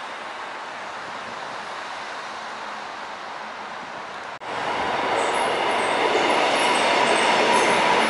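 Steady road-traffic noise beneath an elevated road. After an abrupt cut a little over four seconds in, an electric commuter train passes close by, louder, with a steady whine and brief high squeaks from the wheels.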